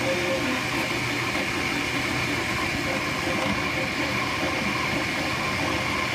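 Flashforge Dreamer 3D printer running mid-print: a steady whir with short tones that keep changing pitch as the print head moves over the layer.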